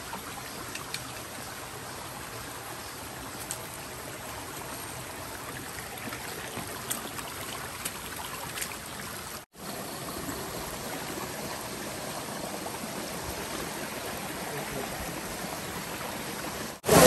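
A small forest stream running and trickling over rocks, a steady rushing sound, with a few faint clicks scattered through it.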